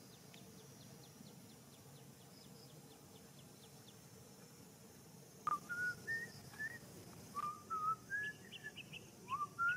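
Faint outdoor background with light ticking. From about halfway, a run of short whistled notes, each gliding up or down.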